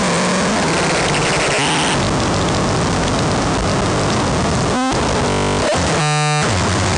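Harsh noise music: a loud, constant wall of distorted static and hiss. About five and six seconds in it breaks into brief glitchy stutters, with repeated buzzing and short drop-outs.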